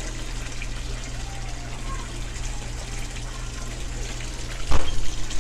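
Steady gush of water running into a koi pond, over a low steady hum. Near the end, a brief thump.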